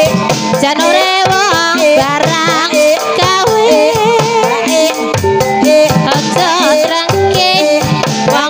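Javanese gamelan music for an ebeg hobby-horse dance: a singer's melody with wide vibrato over hand-drum strokes and metallophone notes.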